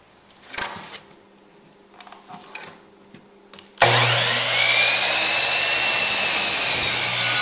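A few faint taps, then about four seconds in a Craftsman electric miter saw starts abruptly and runs loudly, crosscutting a 2x4. Its motor whine rises and then sags slightly as the blade works through the wood.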